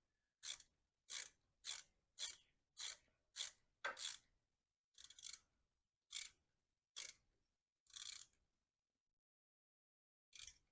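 Hand ratchet with a socket being worked back and forth on a brake caliper bolt, a short clicking rasp on each back-stroke. The strokes come quickly at first, then slow to about one a second before stopping, with one more stroke near the end, as the bolt is run down.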